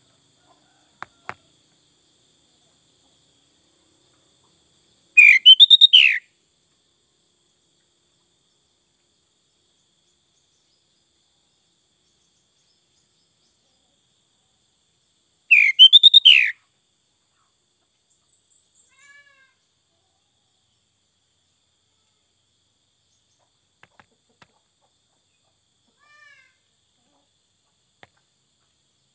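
Sooty-headed bulbul singing: two loud short song phrases, each about a second long and some ten seconds apart, then a few faint chirps.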